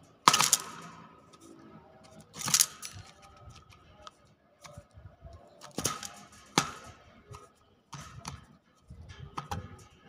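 Common hill myna right at the microphone: a run of irregular sharp clicks and four short, harsh rasping bursts, the loudest about half a second in.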